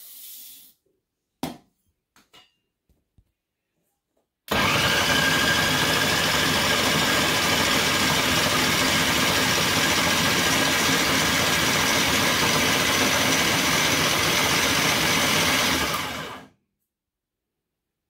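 Food processor grinding roasted sesame seeds: the motor starts about four seconds in, runs steadily for about twelve seconds and winds down near the end. Before it, seeds pour softly into the bowl and there is a sharp click.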